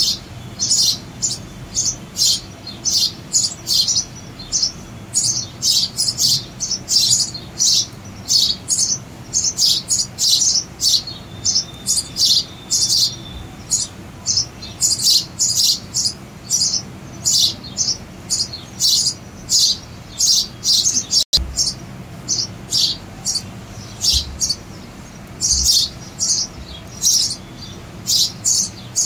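House sparrows chirping constantly, short high chirps coming about two or three a second, with a momentary cut-out about two-thirds of the way through.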